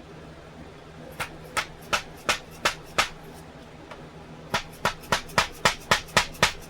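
Sharp, hard taps as a small hammer strikes a sword's fittings during disassembly. About six evenly spaced taps come first, then after a short pause a quicker run of about eight.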